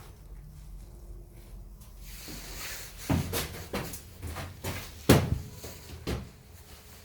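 A handful of sharp knocks and clunks, like a door, cover or part being handled. A soft rustle comes first, and the loudest knock is about five seconds in.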